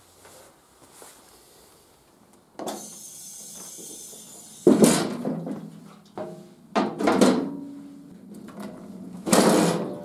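Daelim VS 125's small air-cooled V-twin four-stroke engine being started: about two seconds of cranking, then it catches and is revved in three short blips of the throttle, running between them.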